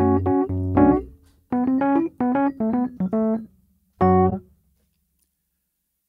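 Electric keyboard playing the closing chords of a song. A few chords over a bass line, a short gap, then a quick run of short stabbed chords and one final chord about four seconds in that stops cleanly.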